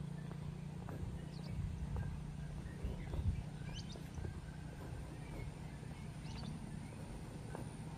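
Footsteps walking on an asphalt road over a steady low rumble, with a bird giving short high chirps three times.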